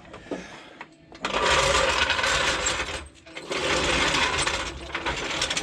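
3.5-ton hydraulic service jack being rolled and worked into place: two stretches of metallic rattling, each about two seconds long, the first starting about a second in.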